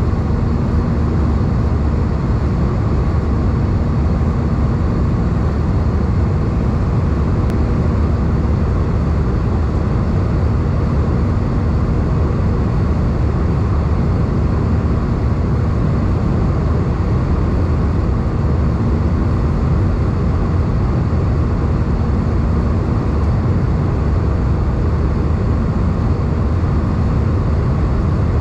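Steady cabin noise of an Airbus A320 in flight, heard from a window seat over the wing: the engines and the airflow past the fuselage make an even, deep rush, with a faint steady hum.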